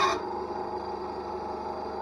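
Einhell TC SB 200/1 bandsaw finishing a cut through a pine strip: the cutting noise stops abruptly right at the start as the blade clears the wood. The saw then runs on unloaded with a steady hum.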